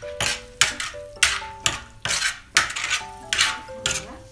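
Metal spoon scraping and stirring mutton liver in thick gravy on a black tawa griddle, a sharp scrape roughly every half second.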